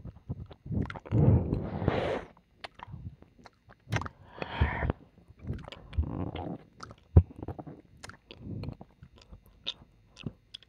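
Close-miked ear licking and kissing in the left ear: wet mouth sounds in irregular bursts with sharp lip smacks and clicks between them.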